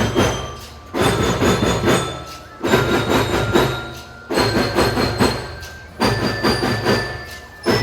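Children's marching drum band playing: rapid drum strokes in a phrase that starts sharply and fades, repeating about every second and a half to two seconds, with held high notes over it.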